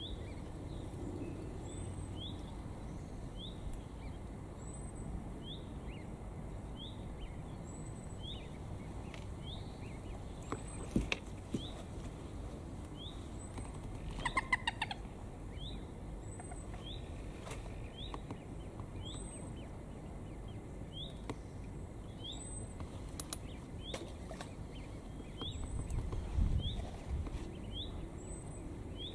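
A small bird calling, repeating one short high note about every one and a half seconds. About halfway through there is a brief, louder, stuttering lower call.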